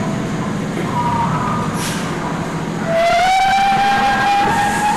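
Steady rumble of a dark-ride car running through the ride. About three seconds in, a long whistle-like tone starts and rises slightly in pitch.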